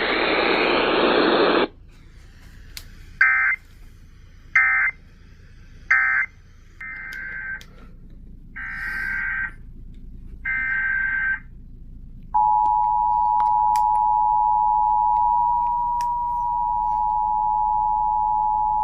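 Emergency Alert System tones. Three short bursts of SAME data tones (the end-of-message code closing one alert) are followed by three longer header bursts opening the next alert. About twelve seconds in, the steady two-tone EAS attention signal starts and keeps sounding. A brief burst of noise comes first.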